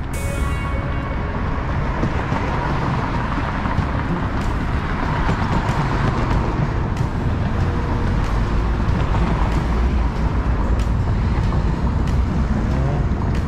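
Road traffic: cars driving past, their tyre and engine noise swelling and fading over a steady low rumble.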